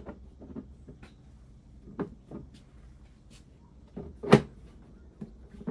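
Scattered clicks and knocks of 3D-printed plastic battery-enclosure pieces being pressed and slid together on a workbench, with the loudest knock a little over four seconds in.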